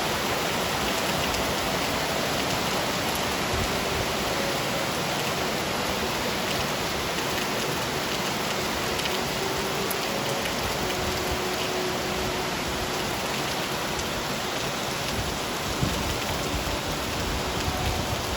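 Steady, even hiss of water with no pauses.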